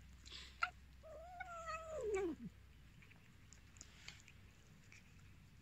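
Hungry stray cat meowing once: a long drawn-out meow of about a second and a half that holds its pitch, then slides down at the end. A few faint clicks come before and after it.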